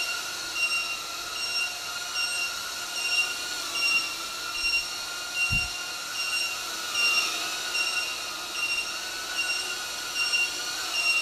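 Emax Babyhawk-R micro brushless quadcopter hovering with a high, wavering propeller whine. Over it, short beeps repeat evenly: the low-battery alarm of its worn-out 2S LiPo. There is a single dull thump about halfway through.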